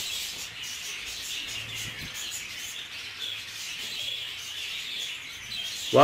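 Budgerigars chirping and twittering in a steady, fairly quiet chatter.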